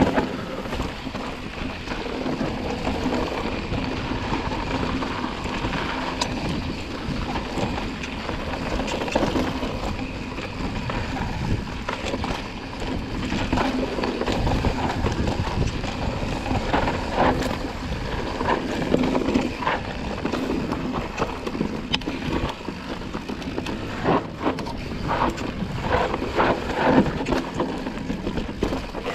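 Mountain bike descending a dirt and rock singletrack: tyres rolling over loose dirt and gravel, with wind rushing over the microphone. The bike rattles and knocks over rough ground, more often in the last few seconds.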